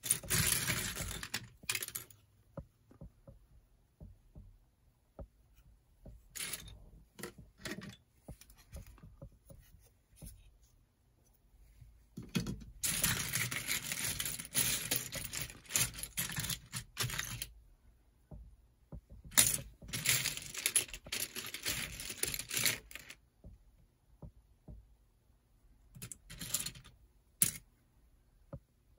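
LEGO pieces and their plastic packaging being handled: clattering and rustling in several bursts of a few seconds each, with scattered clicks and quiet gaps between them.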